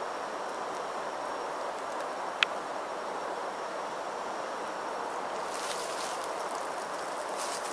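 A steady, even rush of outdoor background noise in woodland, with one sharp click about two and a half seconds in and a brief rustle of leaves and branches near the end.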